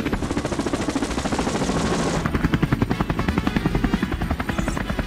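Helicopter rotor sound, a steady rapid chopping beat.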